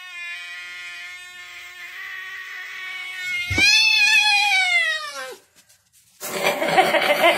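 Domestic cat yowling at another cat outside the door: a long, drawn-out steady yowl, then a louder yowl that rises and falls about three and a half seconds in. A harsh, noisy burst follows near the end.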